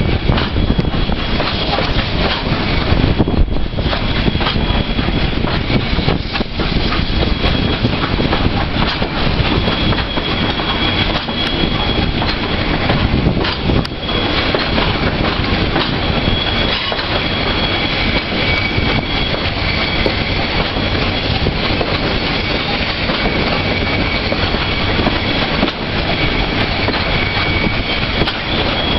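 Nickel Plate Road No. 765, a 2-8-4 Berkshire steam locomotive, moving slowly on curved track, a steady hiss of steam venting at the cylinders over the rumble and clatter of its running gear and wheels. Thin high squeals come and go above it.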